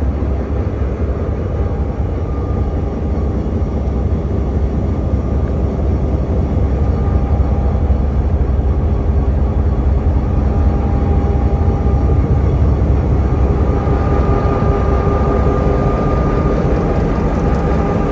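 CSX diesel-electric locomotive's engine running, heard close up from its walkway: a loud, steady low rumble with faint whines that come and go.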